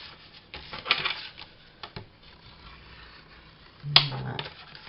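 Sheets of card rustling and rubbing against each other and the work surface as they are handled, with a single sharp tap just before four seconds in.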